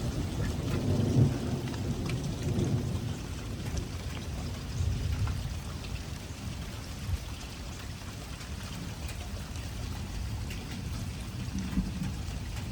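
Steady heavy rain with low rolling thunder, the rumble strongest in the first few seconds and again about five seconds in.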